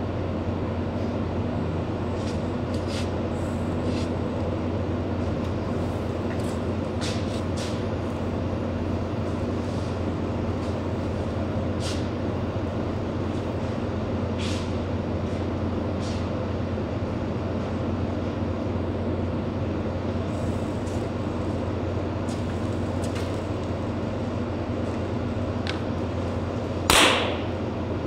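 Oxy-fuel brazing torch burning with a steady hiss, with faint clicks of work on the copper tubing. About 27 seconds in, a loud, short pop that falls in pitch as the flame is shut off.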